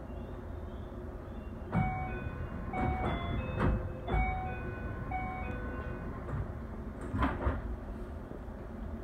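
A stopped Keio 5000 series train at a platform: a short electronic chime of several notes sounds from about two seconds in, then the doors slide shut with a couple of thumps about seven seconds in, over a steady low hum from the train.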